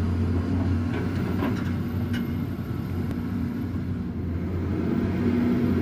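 Concrete pump truck's engine running steadily, a constant low hum, with a few faint ticks between one and two seconds in.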